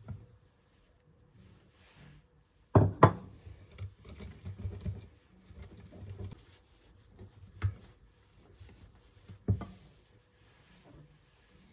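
Objects being handled and set down on a hard surface: two sharp knocks close together about three seconds in, a few seconds of rustling and light scraping, then two more single knocks later.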